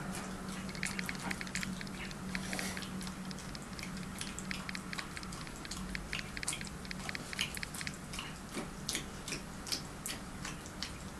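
Dog licking leftover peanut butter off a plate held out to it: a rapid, irregular run of wet licking clicks and smacks, over a low steady hum.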